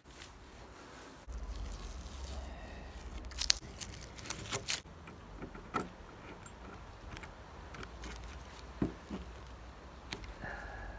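Utility knife blade scraping and clicking against a surfboard's plastic fin box as paint is cut away from it. Irregular sharp clicks and short scrapes play over a low steady rumble.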